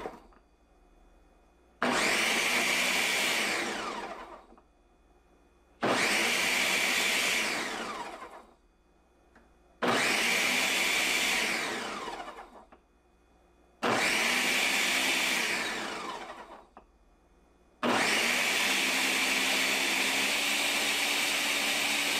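Ninja Smart Screen Duo blender (1400-watt motor base) running its automatic Smoothie program on a pitcher of fruit, kale and frozen mango. It pulses four times, about four seconds apart: each pulse starts sharply, then winds down with falling pitch into a short lull. Near the end it settles into one steady continuous run.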